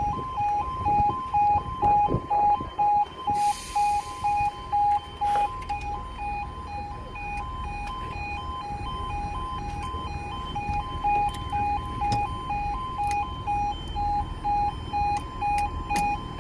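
Railway level crossing warning alarm sounding: an electronic two-tone alarm switching between two pitches about two to three times a second, softer in the middle and louder again near the end.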